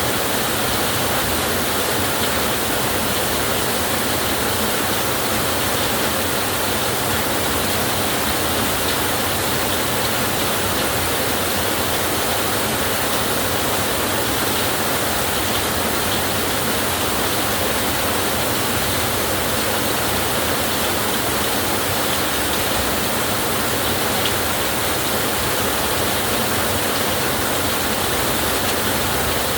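Heavy rain falling on a tin roof, a steady, even hiss of water.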